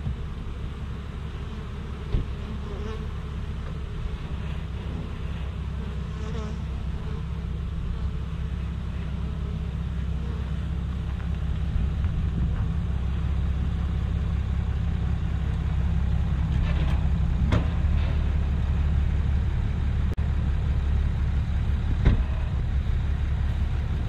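Honeybees from a swarm buzzing around the hive, over a pickup truck's engine running as the truck reverses closer, the hum growing louder as it nears. A few short knocks.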